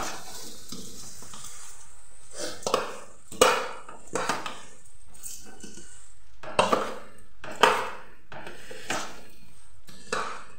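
Long metal spoon stirring rice and masala in a stainless steel pot, scraping and clinking against the pot's side in irregular strokes that ring briefly.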